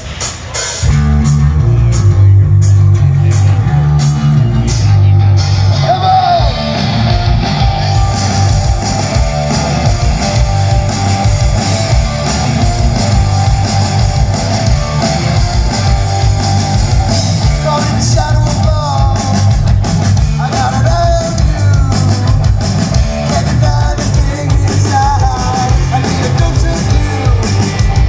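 Live rock band playing through a PA: electric guitars, bass and drum kit crash in about a second in, and a male lead vocal comes in about six seconds in.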